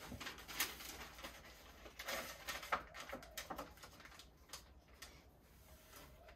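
Faint, scattered taps, scrapes and rustles of gloved hands working in a foil tray of runny PVA glue and handling newspaper strips for paper mache.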